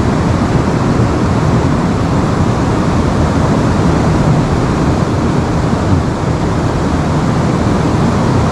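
Steady rushing of river water, a loud even noise with no breaks.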